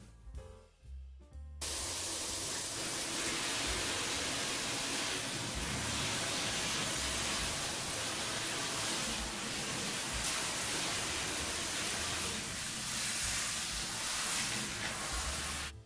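Handheld shower sprayer running, a steady hiss of water spraying onto a wet dog in a plastic grooming tub. The hiss starts suddenly about a second and a half in and cuts off just before the end.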